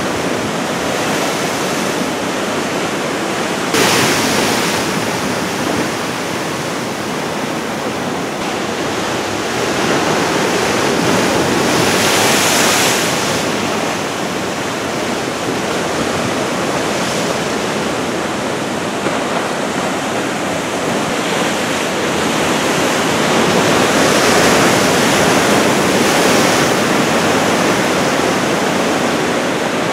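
Big typhoon-swell waves breaking: a continuous wash of heavy surf that swells and ebbs, with louder surges about four seconds and twelve seconds in.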